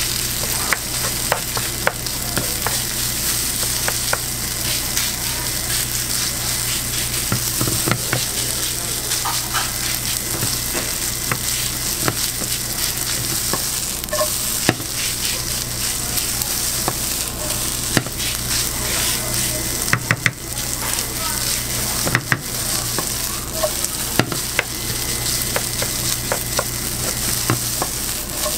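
Fried rice with beef, onion and carrot sizzling in a hot frying pan as it is stirred and tossed, with a spatula scraping and tapping against the pan in scattered sharp knocks. A steady low hum runs underneath.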